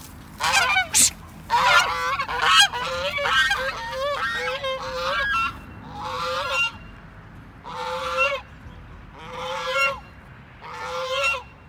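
Domestic geese honking: a fast jumble of overlapping honks in the first half, then single honks about every one and a half seconds.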